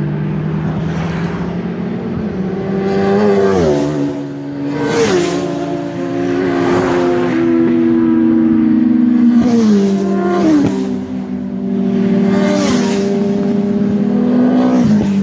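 Superbike engine accelerating hard through the gears. Its pitch climbs and then drops sharply at each of several upshifts.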